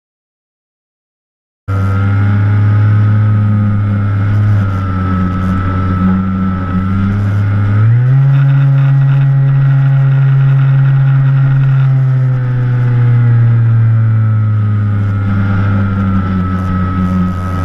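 Motor and propeller of an FPV model airplane, heard through its onboard camera: a steady drone that starts after a second and a half of silence, rises in pitch as the throttle opens about eight seconds in, and sinks back a few seconds later.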